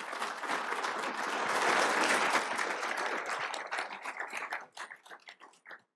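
Audience applauding, building to its loudest about two seconds in, then thinning out to a few scattered claps that die away near the end.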